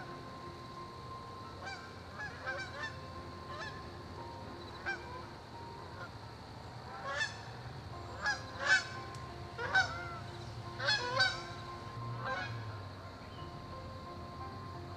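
Geese honking: scattered single calls at first, then a flurry of many overlapping honks in the middle, over soft, steady held background music notes.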